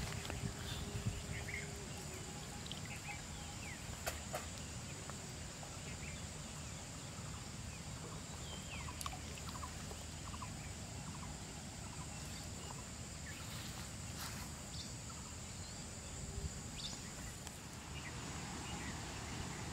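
Rural outdoor ambience: a steady low background rumble and hiss under a constant thin high tone, with scattered short bird chirps and a few faint clicks.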